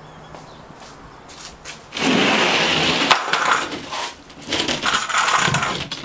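A sheet of plywood being moved by hand, scraping and knocking against the porch, in two loud rough stretches: one about two seconds in, lasting about a second, and another from about four and a half seconds on.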